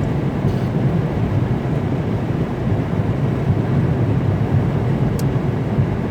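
Steady in-cabin road noise of a car driving on a snowy, windy mountain highway: an unbroken low rumble of tyres, engine and wind with a hiss over it. There is a faint brief tick about five seconds in.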